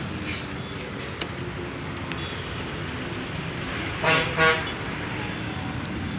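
Steady road-traffic rumble, with two short toots of a vehicle horn about four seconds in.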